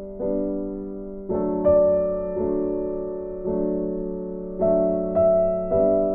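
Soft background piano music, slow held chords that ring out and fade between new notes.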